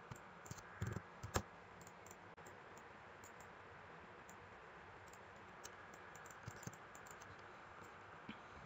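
A few quiet computer mouse clicks, four close together in the first second and a half and a few fainter ones later, over faint room tone.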